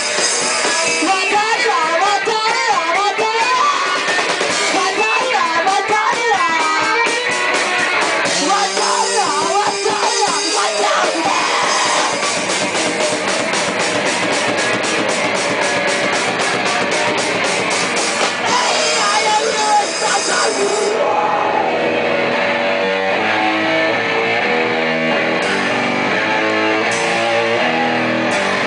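Rock band playing live: a voice singing over drums and electric guitar, with a run of even cymbal hits in the middle. About two-thirds of the way through the cymbals drop out and a guitar plays a repeating riff.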